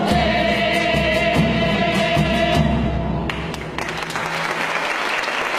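A crowd singing together to acoustic guitar. About three seconds in the singing gives way to applause that breaks off just at the end.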